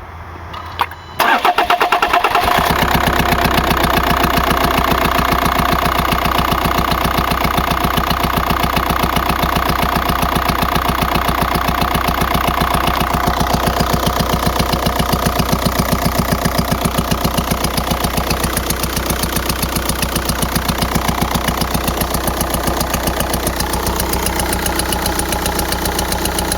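A 2004 VW Jetta TDI's 1.9-litre pumpe-düse diesel engine starts about a second in and then idles with a fast, steady rapping. The rapping comes from a failed camshaft, not an exhaust leak.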